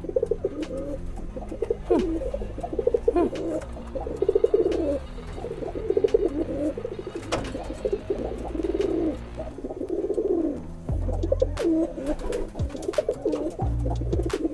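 Domestic pigeons cooing, one rolling coo after another with hardly a pause: the courting coos of a cock pigeon being paired with a new hen. A few faint clicks come in between.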